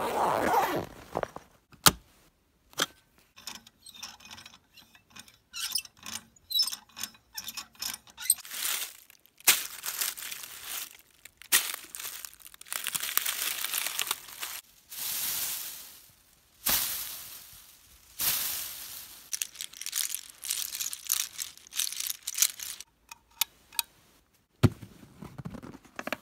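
A run of short foley recordings, one after another. It opens with a canvas bag's zipper being pulled, followed by sharp clicks and handling noises. Then come longer stretches of rustling as fir branches and dry leaves are rubbed by hand.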